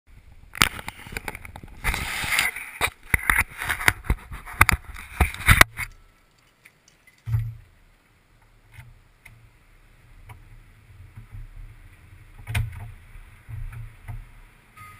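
Handling noise from an action camera being fitted close to the microphone: rapid knocks, taps and scrapes for about six seconds. After that comes a quieter low rumble with a few scattered knocks.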